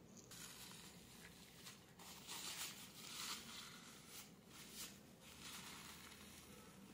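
Faint rustling and crinkling of a paper tissue in short bursts from about two seconds in, as it is handled and wiped under a patient's nose.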